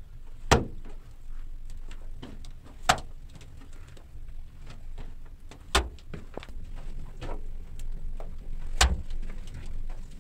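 Stones knocking as they are set in mud in a cave wall above a wood fire: four loud, sharp knocks about three seconds apart, the later two with a dull thump, with lighter clicks and crackles between them.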